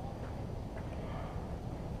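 Wind buffeting the microphone as a steady low rumble, with a few faint short sounds in the middle.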